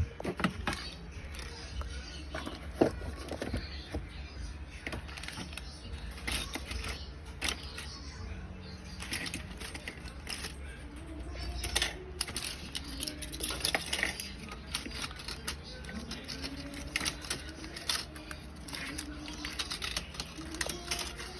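Irregular clicks, knocks and rustling of snack packages and drink bottles and cans being handled and set into a refrigerator, with a sharp knock at the very start.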